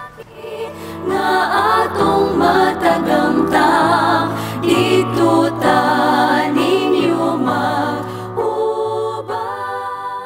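Outro music: voices singing in harmony over sustained low accompaniment notes that change about once a second, easing off near the end.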